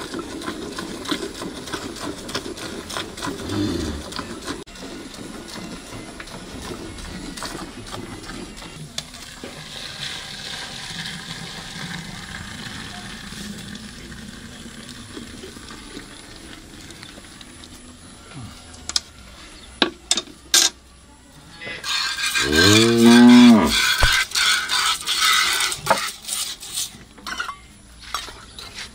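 A cow moos once, a single long call that rises and falls, about three quarters of the way through. Around it, milk squirts and hisses into a metal pail as the cow is milked by hand.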